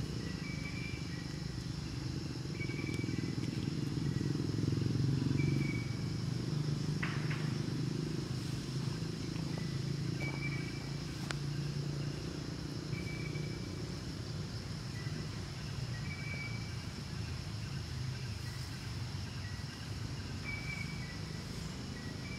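Forest ambience: a steady high insect drone with a short high chirp repeating every second or two, over a low steady hum.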